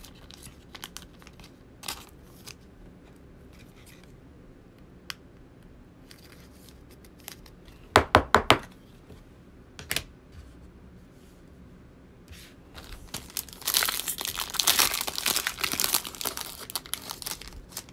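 A foil-wrapped Panini Select football card pack being torn open, with a few seconds of dense crinkling and tearing in the last third. About halfway through there is a quick run of sharp taps, with scattered light clicks before it.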